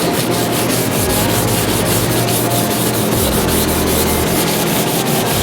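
220-grit sandpaper scrubbed back and forth over a car's rear spoiler to prep it for primer, in quick, even strokes of about five or six a second.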